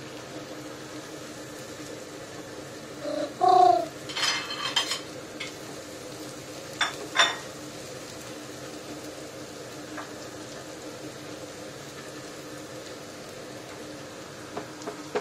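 Minced garlic frying in oil in a nonstick pan, with a steady low sizzle, as a silicone spatula stirs and scrapes it. A brief squeak about three and a half seconds in, then scraping, and two sharp knocks of the spatula on the pan around seven seconds in.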